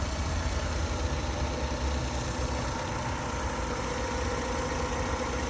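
2007 Kia Sportage's 2.0-litre four-cylinder engine idling steadily, running after a no-start because its cam sensor is now fed 12 volts directly through a bypass wire.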